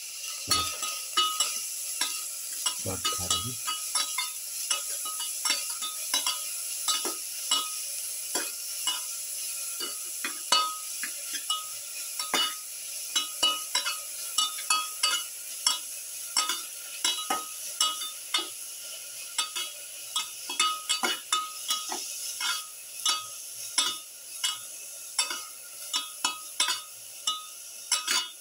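Sliced onions sautéing in ghee in a steel pan, sizzling steadily, while a spatula stirs them with repeated scrapes and knocks against the ringing pan, often a couple of strokes a second.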